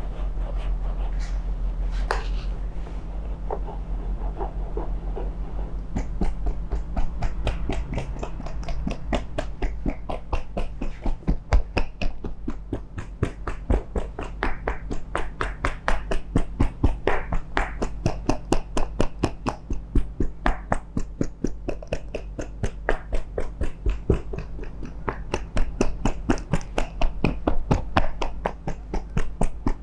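Scalp massager brushes scrubbing over hair and skin, then from about six seconds in tapping rapidly and rhythmically, about five sharp taps a second, picked up close on a clip-on microphone.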